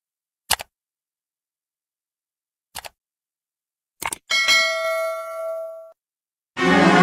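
Subscribe-button animation sound effects: a short tick about half a second in and a faint one near three seconds, then a mouse-click double tick about four seconds in, followed by a bell-like notification ding that rings for about a second and a half.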